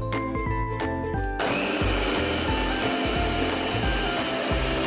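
Electric food processor switched on about a second and a half in. Its motor runs steadily as the blade grinds enoki mushrooms and water into a purée.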